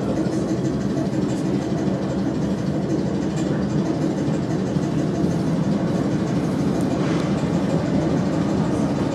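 Steady rumble inside a South West Trains Class 455 electric multiple unit, with a few faint clicks.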